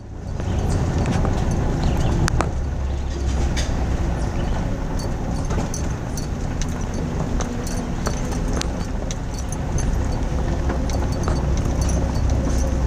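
Vehicle driving on a gravel road, heard from inside the cab: a steady low rumble of engine and tyres with many scattered clicks of gravel crunching and pinging under the tyres.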